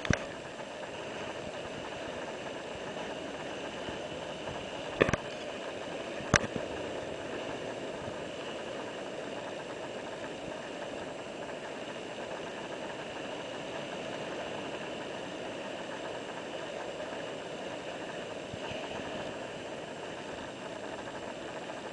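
Steady rushing noise of ocean surf breaking over a rocky shore, with two sharp clicks about five and six and a half seconds in.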